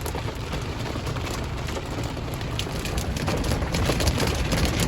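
Heavy rain and hailstones hammering on a car, a dense patter with sharp individual hail strikes that come thicker in the second half.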